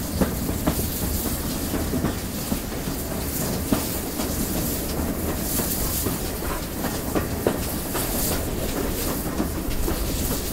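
GWR Collett Goods 0-6-0 steam locomotive No. 3205 running along the line, heard from the engine itself: a steady rumble of the wheels with scattered sharp clicks over the rail joints and a high hiss.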